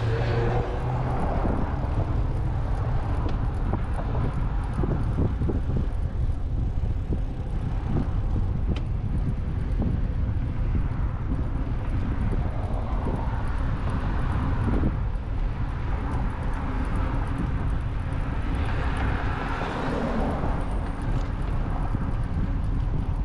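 Steady wind rumble on the microphone of a camera riding along on a bicycle, with road traffic swelling past three times.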